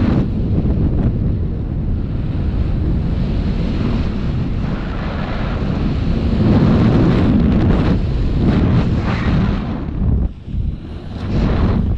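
Airflow of a paraglider in flight buffeting the camera's microphone: a loud, rough rushing that eases briefly about ten seconds in.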